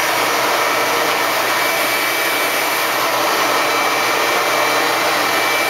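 Shop vacuum running steadily: an even rush of air and motor with a thin, steady high whine.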